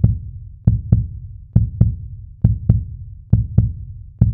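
Outro background music built on a deep double thump, like a heartbeat, repeating evenly a little more than once a second.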